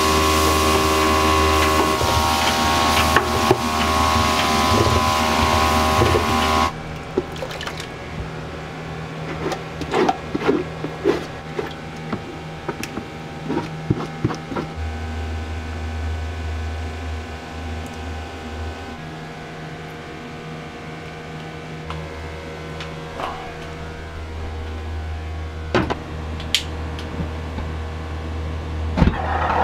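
Commercial kitchen sounds: a loud steady mechanical hum at first. After a cut about seven seconds in, a quieter hum continues under scattered quick knocks and scrapes of utensils on metal cookware as sauce is scraped into an aluminium saucepan and the gas range is worked.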